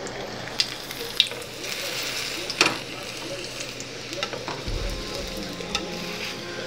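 Dried red chile sizzling in hot oil in a nonstick frying pan as it is toasted, with a few sharp taps and scrapes of a metal slotted spatula turning and pressing it.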